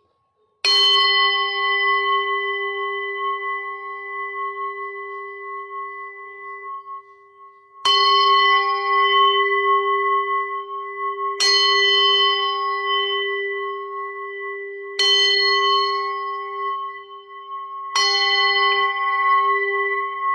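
A singing bowl struck five times, a few seconds apart. Each strike rings on with a deep, slowly wavering hum and several higher overtones that fade gradually and overlap the next strike.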